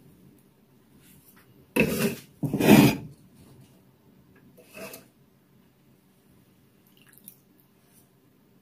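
A spoon scraping against a serving bowl twice in quick succession, about two seconds in, each scrape lasting about half a second, with a fainter scrape near the middle.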